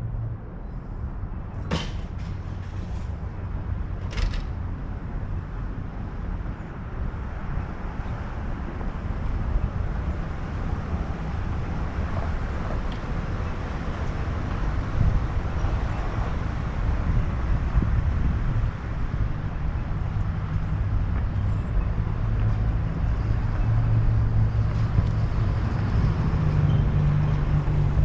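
A car driving, with a steady engine and road rumble that grows gradually louder. Two short clicks come in the first few seconds.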